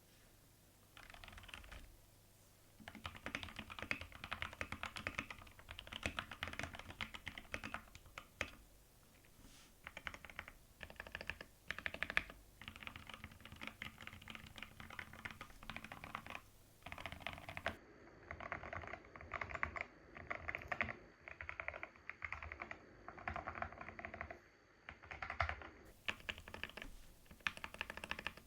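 Typing on a mechanical keyboard with Akko Rosewood linear switches and TaiHao ABS cubic-profile keycaps: fast bursts of keystrokes separated by short pauses.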